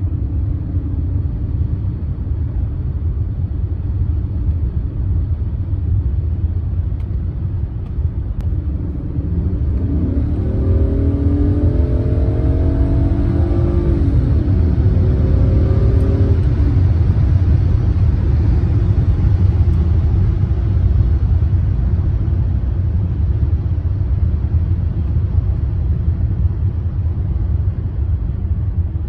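Cabin sound of a 1998 BMW 740iL's V8 on the road: a steady low engine and road rumble. About ten seconds in, the engine note rises under acceleration, dips once at an upshift, rises again, and settles into a louder cruise.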